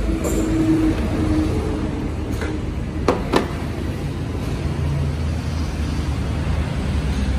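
Steady low rumble of passing road traffic, with two short sharp clicks close together about three seconds in.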